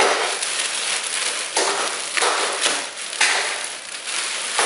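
Clear plastic bag crinkling and rustling in several surges as a speaker is unwrapped from it.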